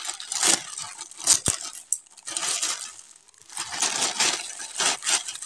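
Scissors snipping through a plastic courier mailer, with a few sharp clicks of the blades in the first second and a half, then the thin plastic crinkling and rustling as the opened bag is handled.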